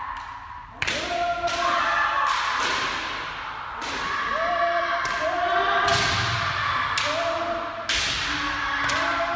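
Kendo sparring: sharp cracks of bamboo shinai striking armour together with stamping feet on the gym floor, about a second in and again near the end, echoing in the hall. Between the strikes the fencers give long drawn-out kiai shouts.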